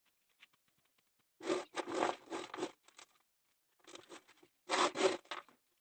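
Dry concrete mix of cement, sand and gravel aggregate scraping and crunching under a hand pressing and levelling it in a plastic bucket. It comes in a few gritty bursts with short pauses, the longest about a second and a half in.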